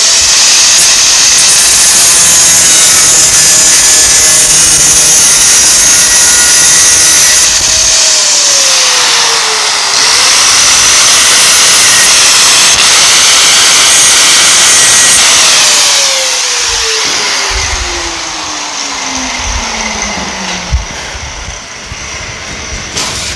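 Electric angle grinder with a thin cut-off disc cutting through aluminium sheet, loud and screeching. About eight seconds in, the motor slows briefly, then picks up again. A few seconds past the middle the cutting stops and the grinder winds down with a steadily falling whine that dies away near the end.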